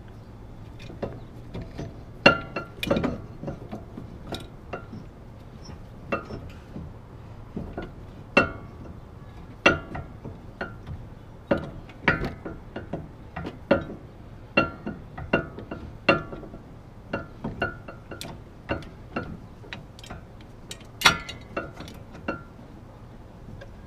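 Steel C-clamp being screwed down on a front brake caliper to push the caliper piston back into its bore. Its metal handle gives a string of sharp, irregular clinks, one or two a second, as it is turned.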